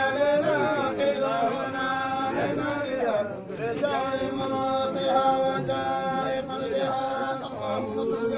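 Men's voices chanting together in an Islamic religious chant, with long held notes.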